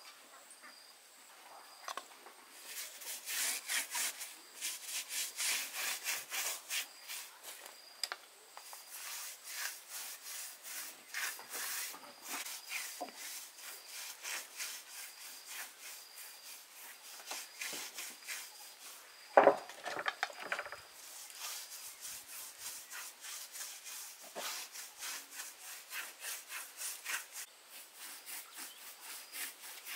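Hand saw cutting through wood in quick, even back-and-forth strokes, with a few short pauses and one loud knock a little past the middle.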